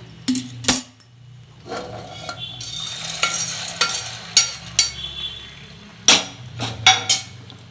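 Metal kitchenware clinking and scraping as roasted dried field beans are tipped from a pan into a pressure cooker of hot water and stirred. There are two sharp clinks near the start, rattling and scraping in the middle, and a few loud clanks near the end.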